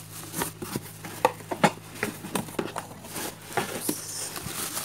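Plastic bubble wrap rustling and crinkling as it is handled and pulled aside in a cardboard box, with irregular sharp crackles, the loudest about a second and a half in.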